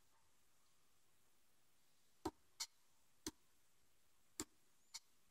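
Near silence, then five faint, sharp clicks spread over the last three seconds: a hook pick lifting pins in a Kwikset pin-tumbler lock cylinder held under light tension, as the lock goes into a false set.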